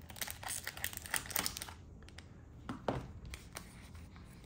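A leather watch pouch being pulled out of a snug cardboard box: a crinkly rustle of leather and card rubbing for about the first second and a half, then a few light knocks about three seconds in as it is handled.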